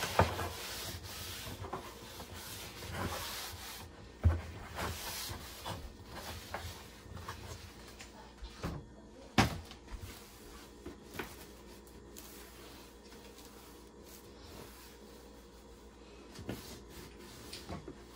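Paper towel rubbing over the surface of an electric griddle, with a few sharp knocks along the way. The rubbing dies down after about nine seconds, leaving only faint handling sounds.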